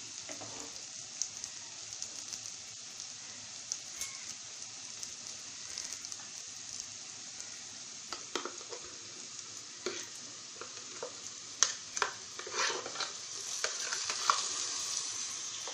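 Shallots, garlic, ginger, green chillies and curry leaves sizzling in hot coconut oil in an earthen pot, a steady frying hiss. A wooden spatula stirs and scrapes against the clay now and then. Near the end, thick ground roasted-coconut paste is scraped into the pot.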